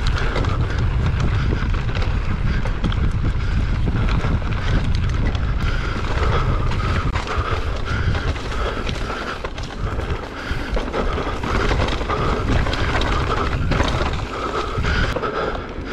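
Mountain bike riding fast down a dirt singletrack: wind rushing over the camera's microphone, with tyres on loose dirt and the bike rattling over bumps.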